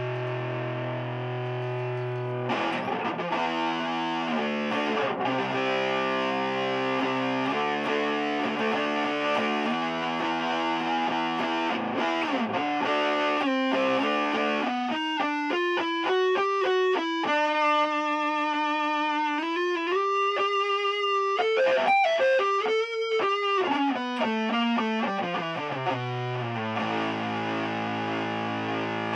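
Electric guitar played through a Keeley Compressor Mini, an Electro-Harmonix Nano Big Muff Pi and an Electro-Harmonix Soul Food, all switched on, giving a distorted tone. It plays held chords for the first half, then a single-note lead line with bends and vibrato, and ends on a held chord.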